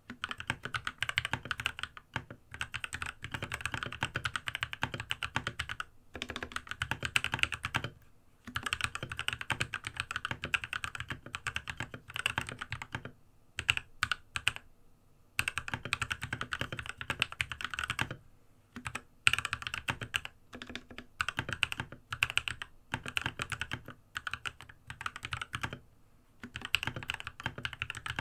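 Fast typing on a Monstargear MK308 keyboard fitted with spray-lubed Gateron optical switches, on a bare desk without a deskmat. Continuous runs of key clicks and thocks stop briefly a few times.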